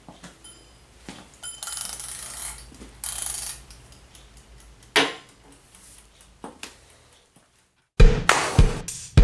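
Rustling, rasping and clicking as a small object is handled by hand, with a sharp knock about five seconds in. Near the end a music track with a heavy, regular drum beat comes in.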